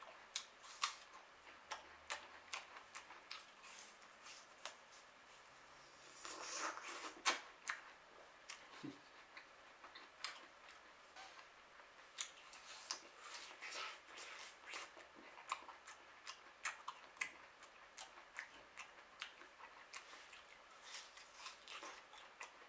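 A person chewing crisp apple close to the microphone: irregular crunching clicks throughout, with a louder crunch about seven seconds in.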